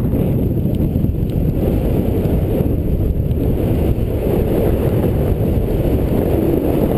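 Airflow buffeting a paraglider pilot's microphone in flight: steady, loud wind noise, deepest in the low end, with no other event standing out.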